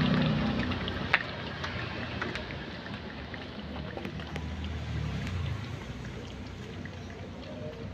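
Cat lapping milk from a plate: a quick run of small wet ticks, with one louder click about a second in. A low rumble underneath, strongest at the start and again around five seconds in.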